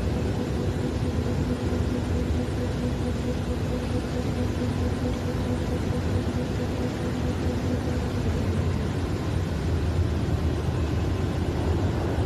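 Steady drone of heavy industrial machinery with a strong low hum, and a higher humming tone that stops about eight seconds in.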